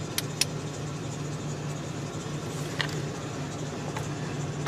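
Pickup truck engine idling steadily, with a few short clicks over it.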